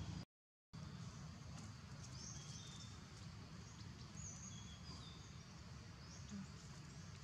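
Outdoor ambience: a steady low rumble with faint, short high bird chirps recurring every second or so. The sound drops out to silence briefly just after the start.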